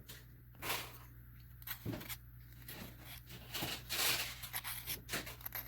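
Metal hand file scraped across the edge of 20-gauge copper sheet in about six short strokes, rounding off a sharp corner.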